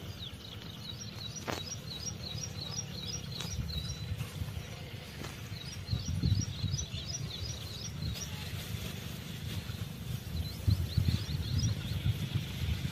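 A small bird singing three runs of quick, repeated high chirps, over a low rumble that swells twice and a few light clicks.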